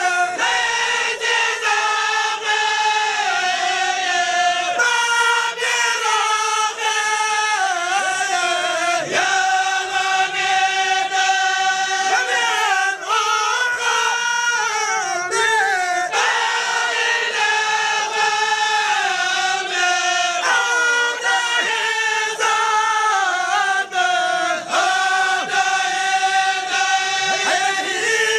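A group of voices chanting devotional verses in unison, long held notes that slide from pitch to pitch without a break.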